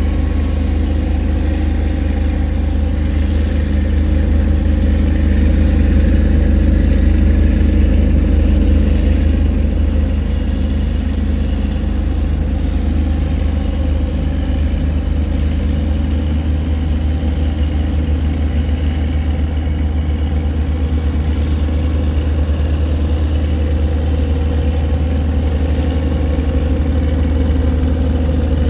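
Tugboat engine running steadily under load while towing cargo barges against the current: a deep, even hum that holds throughout.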